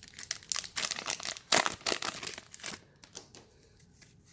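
Foil wrapper of a Pokémon card booster pack crinkling as it is torn open, a dense run of crackles that is loudest about one and a half seconds in and dies down after nearly three seconds.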